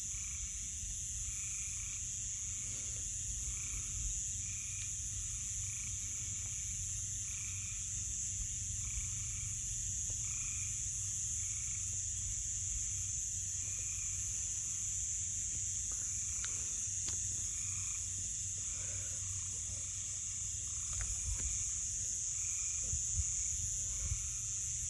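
Night chorus of frogs and insects: a steady high-pitched insect drone with a repeated call about once a second, over a low steady rumble, with a few faint clicks in the second half.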